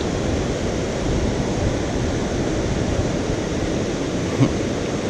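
Steady rushing of river water, with one short tap about four seconds in.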